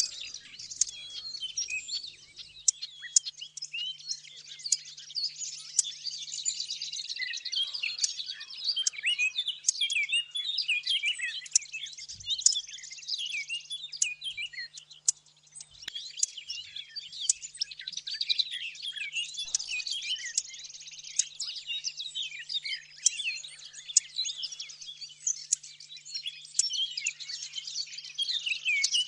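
Mixed recorded songs of willow warbler, lesser whitethroat and blackcap: several songbirds warbling and chirping at once in dense, overlapping high-pitched phrases. A faint low hum runs underneath.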